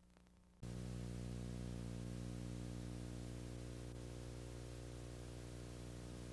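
Steady electrical hum with a buzzy stack of overtones over an even hiss, switching on abruptly under a second in: VHS tape playback noise as a new recording starts, with no programme sound yet.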